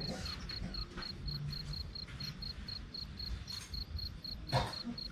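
A cricket chirping in a steady, even train of high pulses, about four a second, over a low rumble of wind. There is one short knock near the end.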